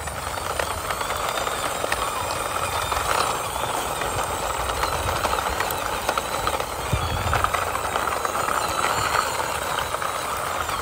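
Plastic toy monster-truck police car pushed by hand, its wide plastic wheels rolling over rough concrete: a steady gritty rolling noise with many small clicks.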